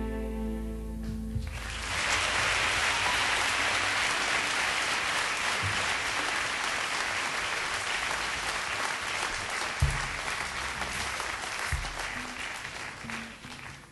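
The band's final chord rings on for about a second and a half and dies away. The audience then applauds steadily, with a few low thumps near the end.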